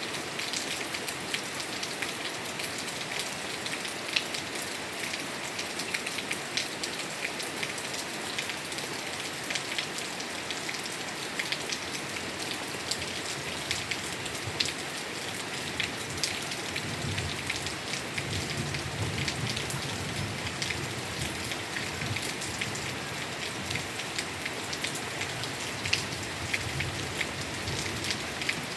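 Steady rain falling, a dense hiss full of individual drops ticking on surfaces. A soft low rumble rises under it about halfway through and fades a few seconds later.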